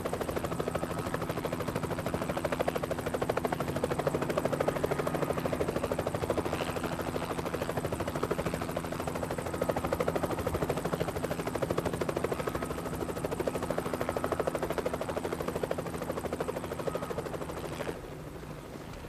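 Helicopter rotor chopping at a fast, even beat over a steady engine hum. It cuts away sharply about a second before the end, leaving a quieter low rumble.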